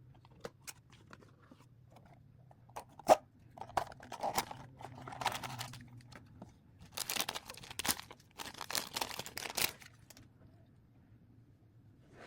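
Plastic packaging being handled and torn open, with a sharp click about three seconds in, then two stretches of crinkling and tearing.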